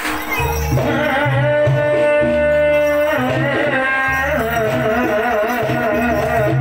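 Jaranan (kuda lumping) ensemble music playing loudly: a deep drum beat repeating in a steady pattern under a high, wavering melody line.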